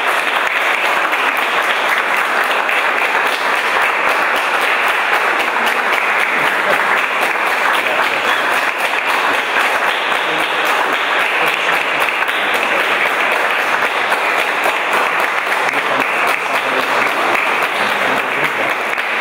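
An audience applauding, steady and unbroken.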